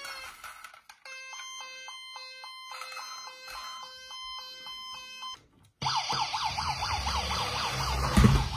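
Electronic toy police siren: a two-tone hi-lo siren, stepping between a low and a high note about twice a second, that stops about five seconds in. After a short gap a fast warbling yelp siren follows, with a low rumble beneath and a thump near the end.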